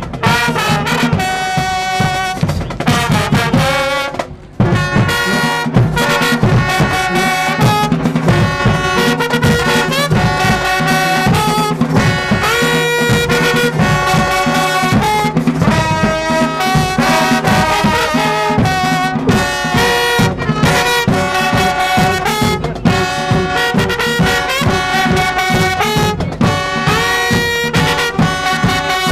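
High school marching band playing: brass (trumpets and trombones) over drums, with a brief break about four seconds in.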